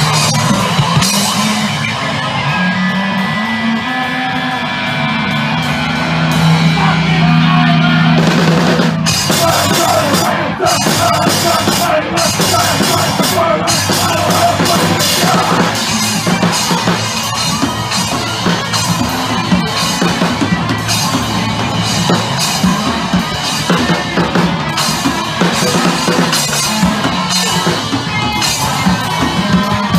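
Loud live rock band heard from beside the drum kit: for about the first nine seconds the band holds long, ringing notes, then the drums come in with rapid hits and crashing cymbals and the full band plays on.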